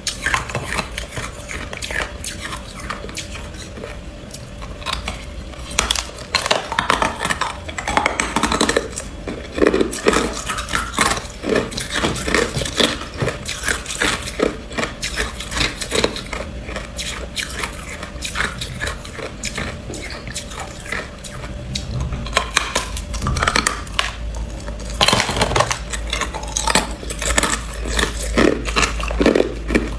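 A person biting and chewing ice: a dense, irregular run of sharp crunches and cracks.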